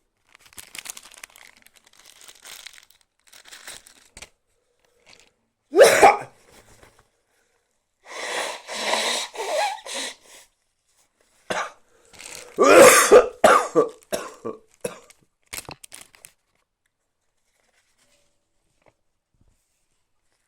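A person coughing and clearing their throat. A few soft breathy sounds lead into a single sharp, loud cough about six seconds in, then a longer fit of coughing from about eight to fifteen seconds, its loudest part around thirteen seconds.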